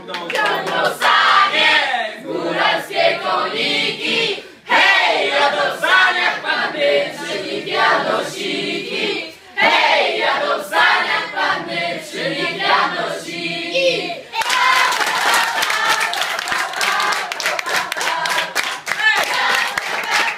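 A group of young voices singing together, with hands clapping. About fourteen seconds in the singing stops and gives way to steady clapping and voices.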